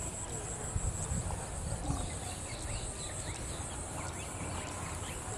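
Outdoor paddy-field ambience: many short chirps of small birds over a steady high-pitched insect drone, with a low rumble underneath.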